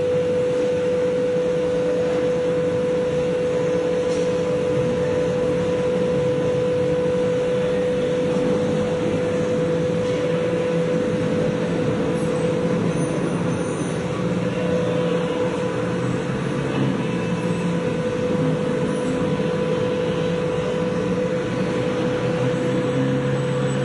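Steady machinery drone with a constant whine, from an overhead crane and the workshop machinery running as a locomotive diesel engine is lowered.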